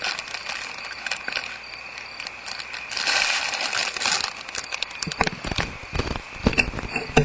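Handling noise on a barn owl nest-box camera as its lens is cleaned: scattered clicks and scrapes, a rush of rubbing about three seconds in, and a run of heavier knocks near the end. A faint steady high whine sits underneath.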